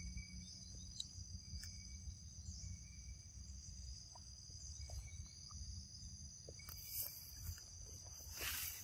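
Insects chirring steadily in a high, continuous tone, with a few soft rustles near the end.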